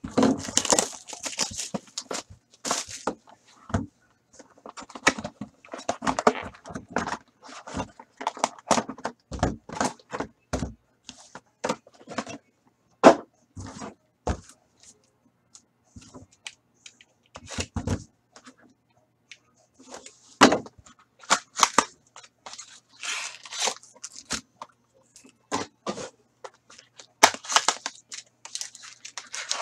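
Opening a sealed 2013-14 Panini Select hockey card hobby box and handling its packs: wrapper and cardboard crinkling and tearing in irregular crackles, with a few dull knocks as packs and the box are set down on the table.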